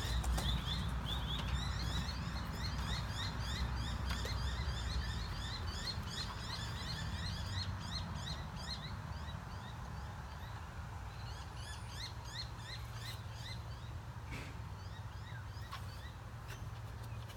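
Birds chirping: a quick run of short repeated chirps that thins out after about nine seconds, over a low steady rumble.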